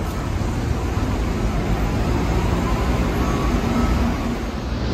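Steady low rumble with an even hiss over it: warehouse loading-dock background noise, with no single distinct event.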